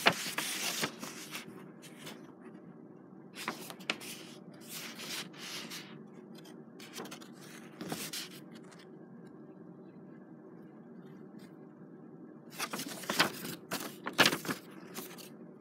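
Paper pages of a booklet rustling and scraping as they are handled and turned close to the microphone, in several short bursts with quieter gaps, busiest near the end.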